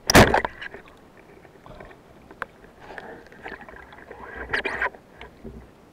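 Heard underwater: a wooden band-powered speargun with double rubbers is fired, giving a sharp, loud thump right at the start. Scattered rattling and scraping follow as the speared fish struggles on the shaft and is grabbed, with a louder flurry of knocks near the end.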